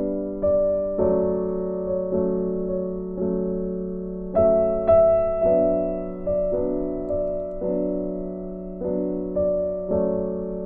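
Background piano music: gentle chords and single notes struck about once a second, each left to fade.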